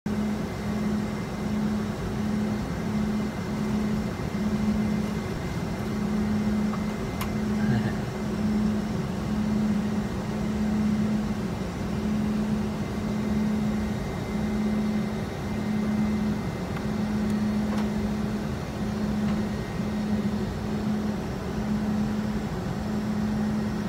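Steady in-flight cockpit noise of a Gulfstream G550 business jet, a constant rush of airflow and engine drone. Under it a low hum pulses on and off in a slow, even rhythm.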